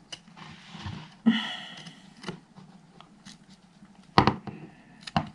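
Plastic clips on a car rev counter's housing being pried with a thin metal pick: light scraping and small clicks, then a loud sharp snap a little after four seconds as a clip lets go.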